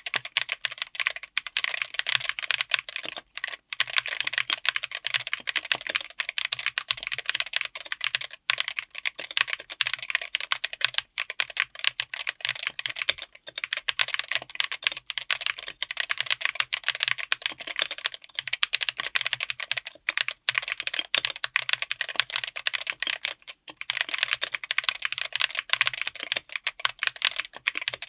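Mechanical keyboard with Chosfox White Fox linear switches, on an FR4 plate in an aluminium case, typed on quickly and continuously as a typing sound test. A dense run of keystrokes is broken by a few brief pauses.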